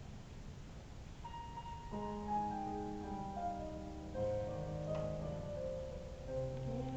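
Piano introduction of a backing track played over the stage speakers, starting about a second in with single held notes and filling out into chords, heard from far back in a large hall.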